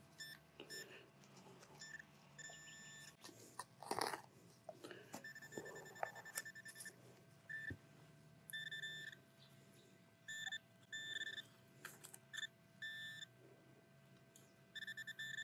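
Handheld Garrett Pro-Pointer AT pinpointer beeping in short bursts of a high tone, some bursts broken into rapid pulses, as it is probed around a dig hole, signalling metal in the soil. A brief scrape about four seconds in.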